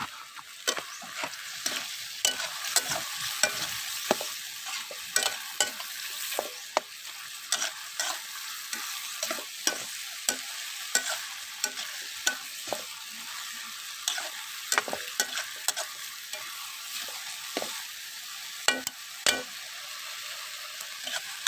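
Metal spatula scraping and clinking against a steel wok in repeated, irregular strokes, a few a second, while chicken and vegetables sizzle steadily in sauce.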